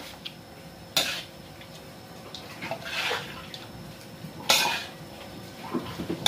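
Dishes and metal pots clattering as they are handled and washed, with sharp clanks about a second in and again past the middle, and a few smaller knocks near the end.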